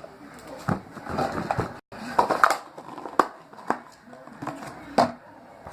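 Slime being squeezed and handled by hand, with an irregular run of sharp crackles and pops.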